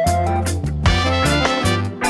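Background music with a steady beat: an upbeat swing-style instrumental with bass and drums.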